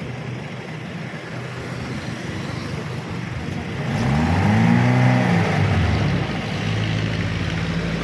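Vehicle engine idling, revved up once about four seconds in with its pitch rising and falling back, then settling to a steady idle.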